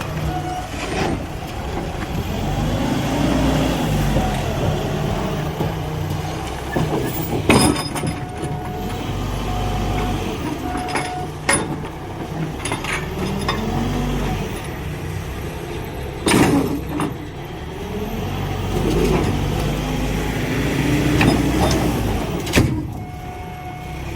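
A vehicle or machine engine running and revving up and down, with several sharp knocks and bangs at intervals.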